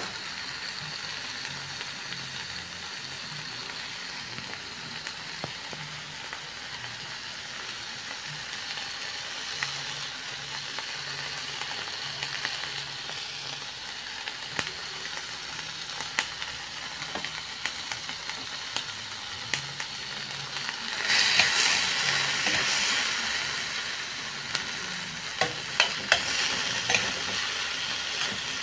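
Onions, garlic and tomatoes sizzling in oil in a stainless steel pan, with the scrape and tap of a spatula stirring them now and then. The sizzle grows louder for a few seconds about three-quarters of the way through.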